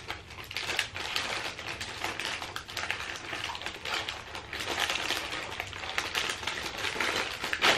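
Thin clear plastic cookie wrapper crinkling and crackling as it is handled and picked open, with a sharper crackle near the end.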